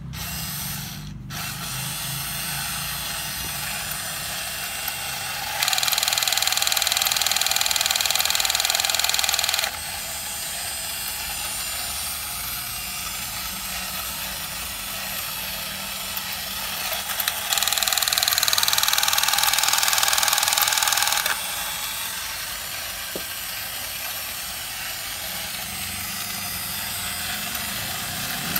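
Battery-operated tin toy robot, a Daiya Astronaut X-70, with its small motor and gear mechanism whirring as it runs. The noise grows louder and harsher twice, for about four seconds each time: about six seconds in and again about eighteen seconds in.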